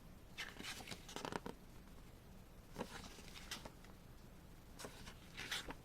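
Pages of a paper lyrics booklet being turned and handled: a few brief, soft rustles of paper.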